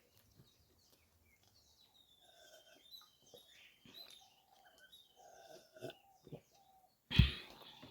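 Close-miked chewing of curry and rice: soft wet mouth and lip smacks with small clicks and squeaks. A sudden loud thump comes about seven seconds in.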